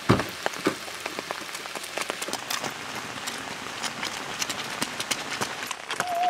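Steady rain falling, with many small drop ticks, and one loud thump just after the start. A wavering, theremin-like tone comes in near the end.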